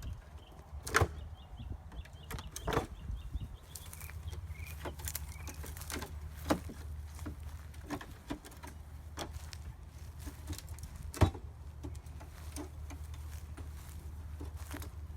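Scattered knocks and clicks, the loudest about a second in and just past the eleven-second mark, over a steady low hum that sets in a few seconds in.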